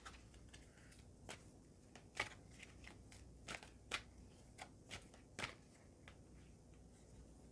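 A deck of oracle cards shuffled by hand: faint, irregular clicks and soft slaps as cards are slid and dropped between the hands.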